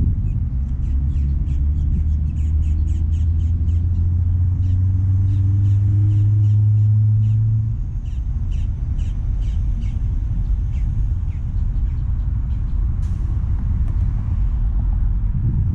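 Road traffic rumbling, with one vehicle's engine running loud and slowly rising in pitch, then dropping away about eight seconds in. A bird calls over it in quick repeated chirps.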